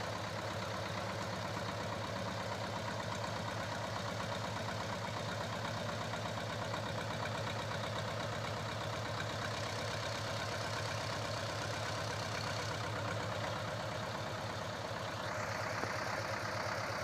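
SAME 250 tractor's diesel engine running steadily with an even beat. About fifteen seconds in, the sound turns a little brighter and louder.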